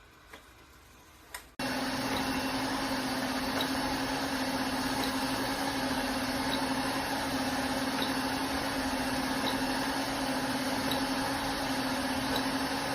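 ILIFE robot vacuum cleaner running: a steady, even whirring with a constant hum, starting abruptly after a click about a second and a half in.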